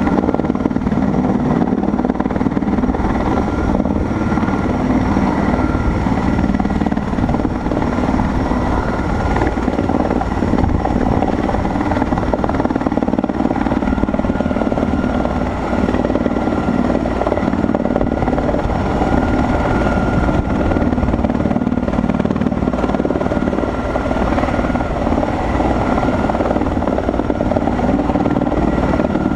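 Sikorsky S-64 Skycrane helicopter running steadily and loud: a thin, steady turbine whine over a deep, continuous rotor drone.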